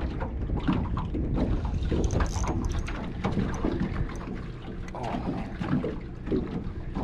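Wind buffeting the microphone and small waves slapping against the hull of a small fishing boat, with scattered short knocks and splashes.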